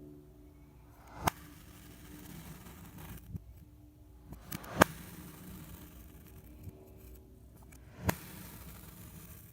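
Knife cutting through kinetic sand three times, about three and a half seconds apart: each cut is a brief rising crunch that ends in a sharp click as the blade reaches the bottom.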